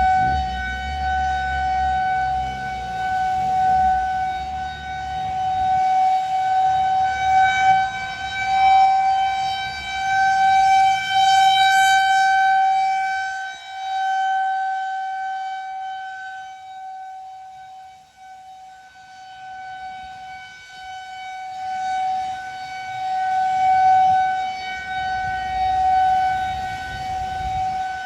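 Federal Signal 2001-130 rotating outdoor tornado warning siren sounding a steady, single-pitch alert tone. It swells and fades as the rotating horn turns toward and away, and is faintest about two-thirds of the way through before growing loud again.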